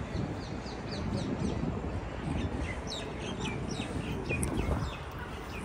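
Small birds chirping: a quick run of short, high, downward-sliding chirps, several a second, over a low steady rumble.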